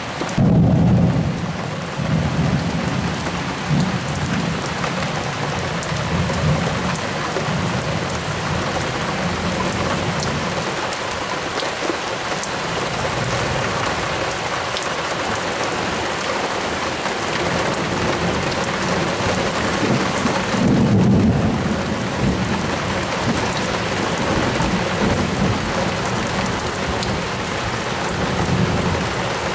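Thunderstorm: heavy rain falling steadily, with deep thunder rumbling on and off. A loud peal comes about half a second in, and another loud one about 21 seconds in.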